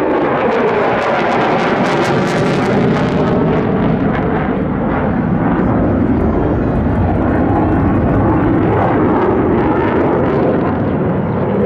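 Mitsubishi F-2 fighter's single F110 turbofan running loud as the jet pulls a high-G turn overhead, a falling whine in the first two seconds and a crackle from about one to three seconds in.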